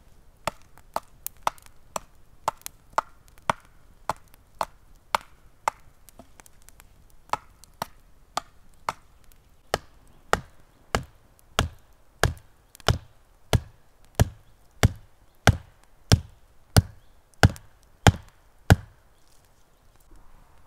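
Hatchet chopping wood in quick, sharp strokes, about two a second. Partway through, it gives way to a wooden stake being pounded into the ground: about fifteen heavier, deeper blows, roughly three every two seconds, growing louder and stopping shortly before the end.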